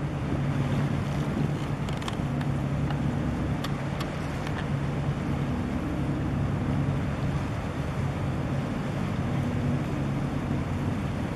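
Low, steady drone of ship engines, a large vessel with its tug under way, over wind and water noise.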